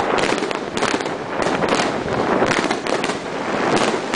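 Aerial fireworks shells bursting in rapid succession: a dense, continuous barrage of bangs and crackle with no pauses between reports.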